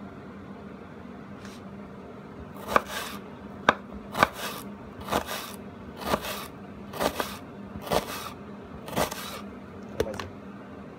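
Kitchen knife slicing a half onion into rings on a wooden cutting board: eight crisp crunching cuts about a second apart, each ending in a tap of the blade on the board, starting a couple of seconds in. A faint steady hum runs underneath.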